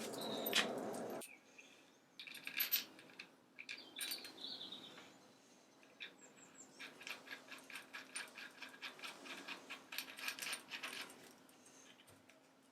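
Light metallic clinks and taps of a steel tee bolt and nut being fitted to a milling machine vice, then a run of quick light clicks, about five a second, for roughly five seconds. A steady background noise cuts off suddenly about a second in.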